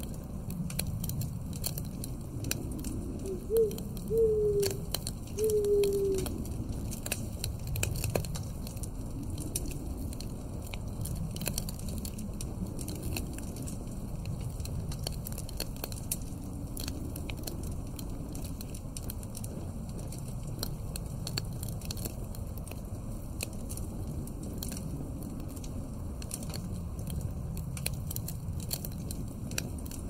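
Log fire crackling in a fireplace with a steady, swelling low wind. About four seconds in, a few short wavering tones rise above it briefly, the loudest sounds here.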